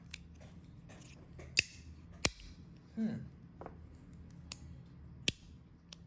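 PEI plastic Mahjong fidget slider being slid, its pieces snapping into place with sharp pops, about six spread unevenly over several seconds, the loudest near the end.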